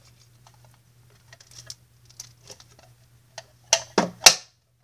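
Clear plastic cube display case being handled and opened: light scattered clicks and taps, then three or four loud sharp plastic clacks near the end as the case comes off the cube.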